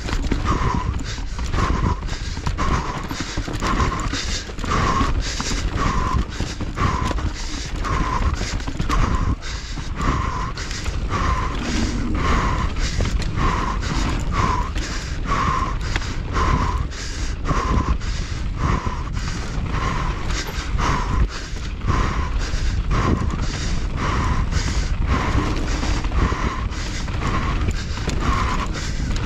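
Mountain bike ridden hard down a loose, rough dirt trail: tyres on dirt, the bike clattering and rattling over ruts, and wind buffeting the camera microphone. A softer sound repeats about once a second throughout.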